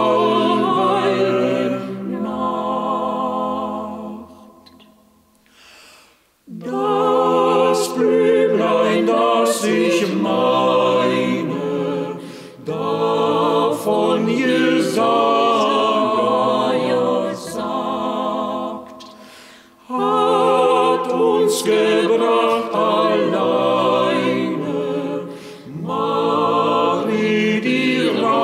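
A small mixed vocal ensemble of men's and women's voices singing a hymn a cappella, phrase by phrase with short breaks between lines. About four seconds in the singing fades to a pause of about two seconds before the next verse line begins.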